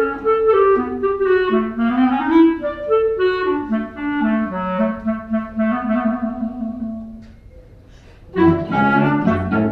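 Small chamber ensemble playing a new classical piece live, with several melodic lines moving together. A phrase fades to a brief quiet gap, then a fuller, louder passage begins about a second before the end.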